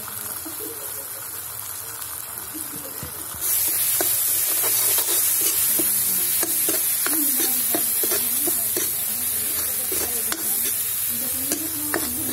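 Masala sizzling in a hot steel kadai. The sizzle jumps much louder about three and a half seconds in, and then a steel ladle clinks and scrapes against the pan again and again as the mixture is stirred.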